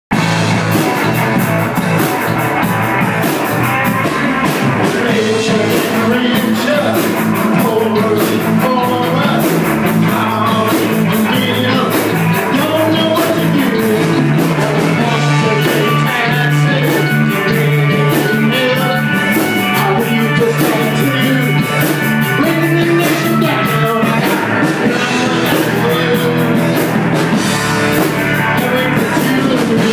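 A rock song played by a band, with a drum kit keeping a steady beat under guitar.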